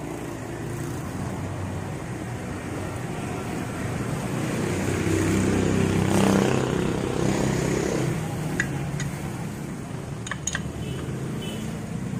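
A road vehicle's engine passing by, growing louder to a peak about halfway through and then fading. A few light metal clinks follow near the end.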